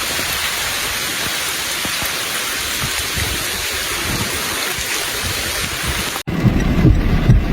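Rain falling steadily, an even hiss. About six seconds in it cuts off abruptly and a low rumble of a vehicle engine takes over.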